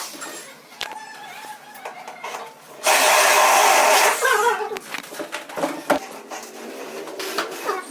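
Cordless drill running hard for just over a second as it drives into the metal ceiling channel, about three seconds in. Scattered short clicks and knocks come before and after it.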